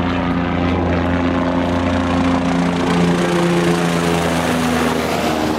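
OH-58D Kiowa Warrior scout helicopter flying low and passing overhead, its turbine and rotor chop loud and steady. The pitch drops a little about four and a half seconds in as it goes over.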